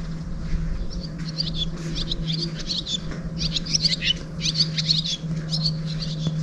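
Small birds chirping, many quick high chirps in a busy run that starts about a second in, over a steady low hum.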